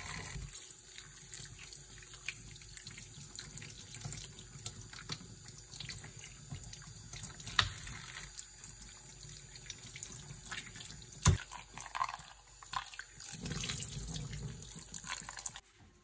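Tap water running into a kitchen sink, with scattered clicks and a sharp knock about eleven seconds in. It cuts off suddenly just before the end.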